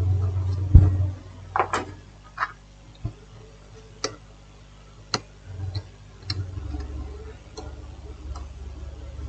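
About ten sharp, irregular clicks and taps of small tools at an electronics repair bench. A low hum stops about a second in and comes back near the end.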